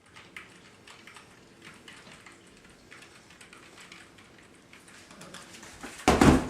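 Faint crackling noise with scattered small clicks, then a single loud, heavy thump about six seconds in.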